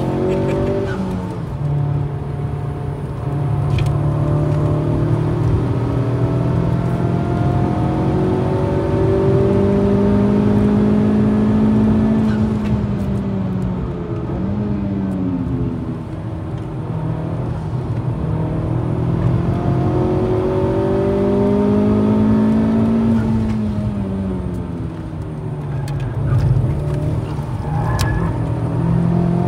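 Honda Civic Type R engine at speed on a race circuit, revving hard: its pitch climbs steadily for several seconds, falls away about halfway through, then climbs again and falls once more near the end.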